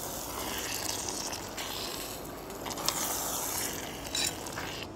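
A metal spoon stirring a thick, sticky mix of plums and jaggery in a metal pan, scraping along the pan, with a couple of sharper knocks about three and four seconds in.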